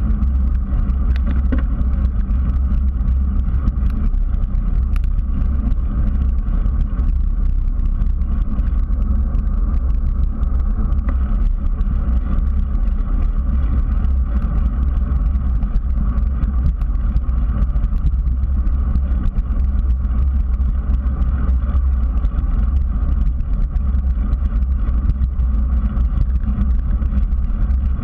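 Steady low rumble of wind buffeting and tyre-on-asphalt road noise picked up by a bicycle-mounted GoPro while riding.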